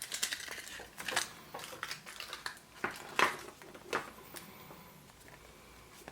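Sharp plastic clicks and rattles as a Kinder Surprise egg's toy capsule is handled and opened, the loudest click about three seconds in, then quieter handling.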